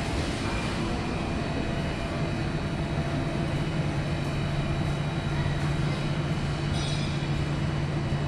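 Steady mechanical hum of refrigeration and ventilation machinery, with several held tones over an even rumble; the low hum grows stronger about two seconds in.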